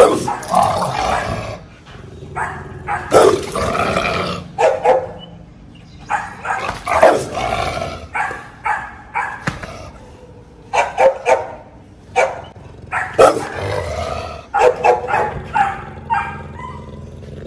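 Large dog barking repeatedly in clusters of barks every couple of seconds, the fierce reaction of a dog at a gate to people coming up to it.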